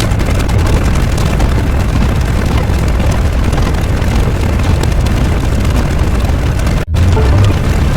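Loud, continuous deep rumbling sound effect, heaviest in the low bass, that cuts out for an instant about seven seconds in before carrying on.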